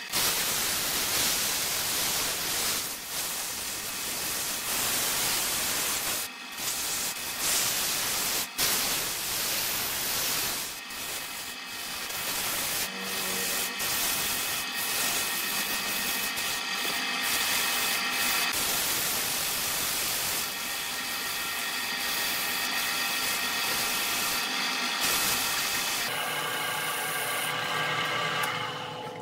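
Sanding a spinning wooden workpiece on a wood lathe: a steady hissing rub of abrasive on the turning wood, with the lathe running.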